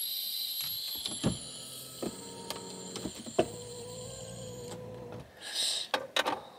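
A long, held drag on a disposable vape pen (a 'blinker'): a thin, steady high whistle and hiss of air drawn through the pen for about five seconds, with a lower whistle joining halfway. Short breathy bursts of exhaling follow near the end.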